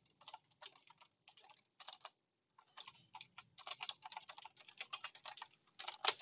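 Typing on a computer keyboard: a few scattered keystrokes at first, then a quick, steady run of keystrokes from about halfway through.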